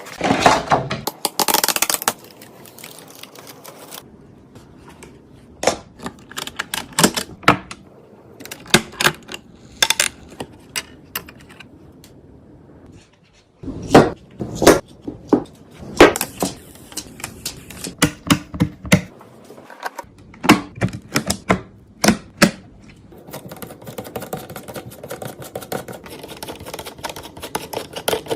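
Hard plastic and metal computer parts being handled and fitted during a PC assembly, giving irregular sharp clicks and knocks. There is a brief rustling clatter at the start and a denser run of quick small ticks near the end.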